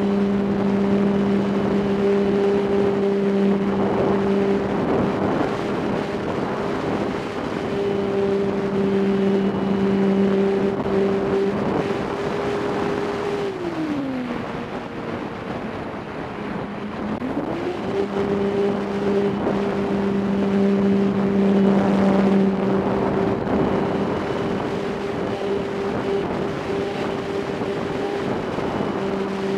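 RC airplane's motor and propeller heard from an onboard camera, running at a steady pitch. About halfway through it is throttled back and the pitch drops for a few seconds, then it is throttled up to the same pitch again, with wind noise on the microphone.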